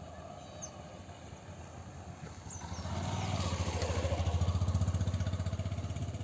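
A small engine vehicle drawing near and passing close by, its rapid engine pulse swelling from about halfway through, with a few faint bird chirps early on.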